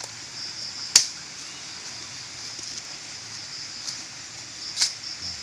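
Two sharp woody cracks, about a second in and near the end, as a piece of bamboo is cut or broken off by hand, over a steady high-pitched background drone.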